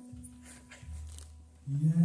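Opening of a live song for grand piano and voice: a quiet held note, then the music comes in much louder near the end.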